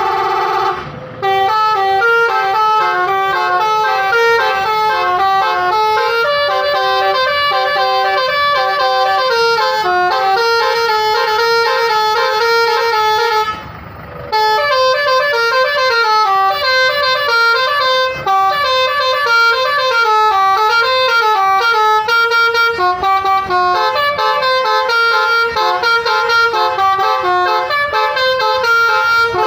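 Bus telolet musical air horn playing a 'basuri' tune of quick, stepping notes, breaking off briefly about a second in and again about halfway through.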